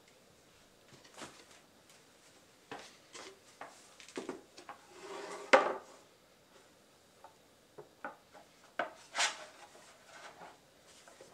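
Handling noises as a synthetic-decking snowskate board and a wooden plank are set down and shifted on a tile floor: scattered knocks, taps and scrapes, the sharpest knock about five and a half seconds in and another about nine seconds in.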